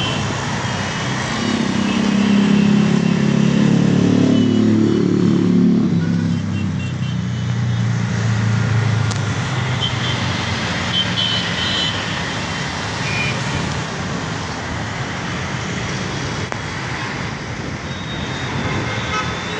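Steady road-traffic noise from a busy multi-lane highway. In the first half one vehicle's engine grows louder and slowly drops in pitch as it passes.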